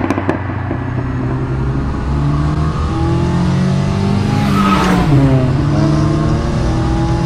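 Cyan P1800 restomod's 420 hp touring-car engine, a turbocharged two-litre four-cylinder, pulling hard as the car approaches and passes, its note rising and then dropping in pitch as it goes by about five seconds in.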